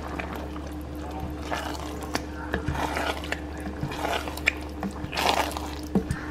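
Wet squelching and pouring of tomato sauce in a pot, with a few sharp clicks of a utensil against the pot, over a steady low hum.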